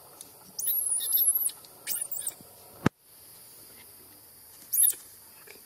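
Baby macaque squealing in three bouts of very high-pitched squeaks, the longest about a second. A sharp click about halfway through.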